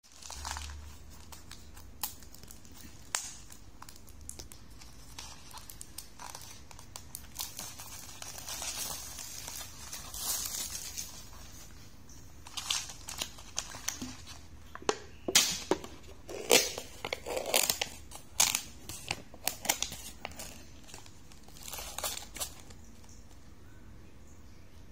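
The packaging of a Nissin Cup Noodles instant-noodle cup crinkling and tearing as it is unwrapped and opened. The crackles are scattered at first and come denser and louder through the middle.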